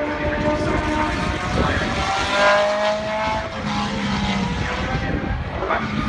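Cosworth 3.0-litre V8 engines of historic Formula 1 cars at racing speed around the circuit. The engine pitch glides up and down, climbing clearly about two seconds in.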